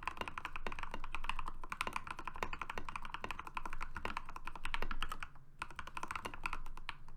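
Fast typing on a modded Next Time NT75 mechanical keyboard with hand-lubed Gateron Pro Yellow linear switches on PE foam switch pads and PBT Cherry-profile keycaps: a dense run of keystrokes that thins out a little after about five seconds.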